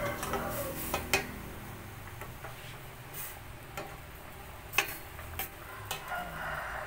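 Metal ladle clinking against a metal cooking pot while stirring a simmering soup: a handful of separate sharp clinks spread out, with softer stirring noise between them.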